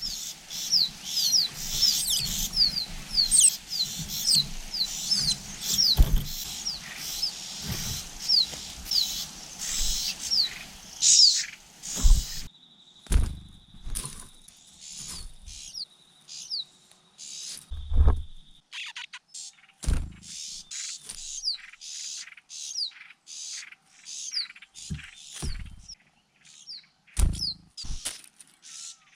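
Small birds giving rapid series of short, high-pitched, falling chirps. A few low thumps fall between them. The sound changes abruptly about twelve seconds in, after which the chirps come more sparsely and a steady thin high tone runs for several seconds.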